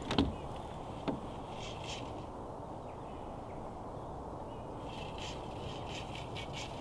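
Steady rush of flowing river water, with a short knock just after the start and another about a second in. Harsh bird calls come in briefly and again for a couple of seconds near the end.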